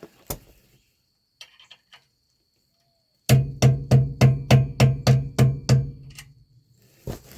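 Hammer blows on the S-cam brake assembly of a semi-trailer axle. After a single knock and a few light clicks, a quick series of about ten heavy blows comes at about four a second, each with a deep ring.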